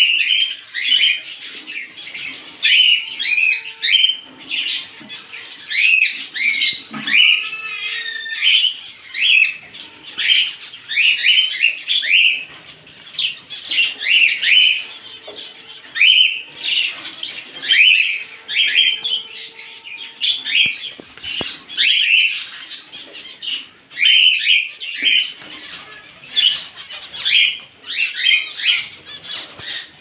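A flock of small cage birds in an aviary, finches and budgerigars among them, chirping and calling continually: a busy run of short, quick, high calls with only brief pauses.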